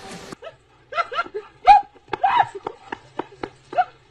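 A dog yipping and barking excitedly in a quick run of short, high calls, with a few sharp clicks among them; the loudest yelp comes about halfway through.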